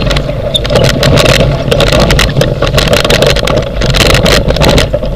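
Wheeled dryland dog rig pulled at speed by huskies over a rough, wet dirt trail: a steady loud rumbling rush from the wheels with constant rattling clicks and knocks from the frame.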